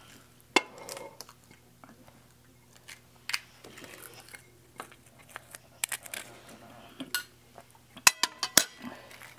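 Metal spoons clinking and tapping against ceramic plates and bowls as panipuri shells are filled, in scattered single clicks with a quick run of clinks near the end.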